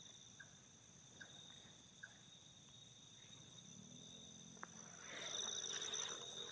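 Faint night chorus of insects, such as crickets, trilling steadily at a high pitch, with a few faint short chirps about a second apart at the start. A rustling swells near the end.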